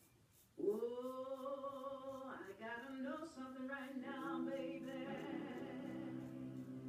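Blues music playing in the background, with long held notes that start about half a second in.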